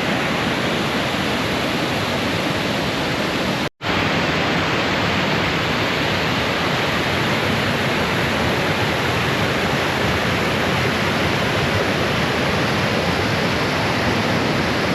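Bond Falls waterfall: a steady, loud rush of water cascading over rock, with a momentary drop-out of the sound about four seconds in.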